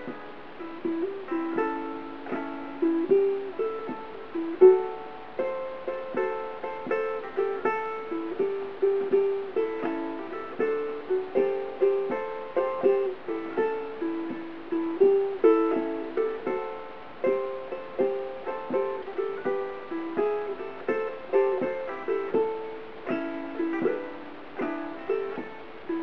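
Covered Bridge tenor ukulele with a redwood top and myrtle body, played as a blues piece: a steady flow of picked notes, each starting sharply and ringing briefly.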